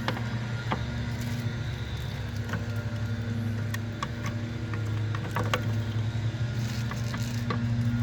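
A steady low machine hum in the background, with scattered light clicks and knocks as a rusty bumper bracket is worked off the car.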